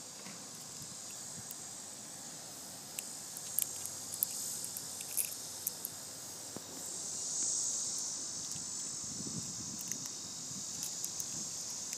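A steady, high-pitched summer insect chorus that swells about seven seconds in, with scattered small clicks from hands handling the plastic pieces of a broken iPad charger plug. A few soft thuds come near the end.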